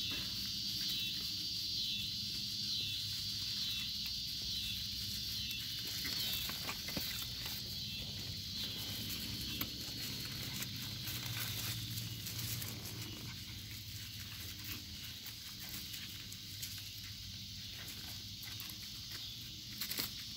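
Pomeranian puppies scuffling and scrambling over grass and dry leaves, with many short scratchy rustles that are densest midway, over a steady high chirring insect chorus.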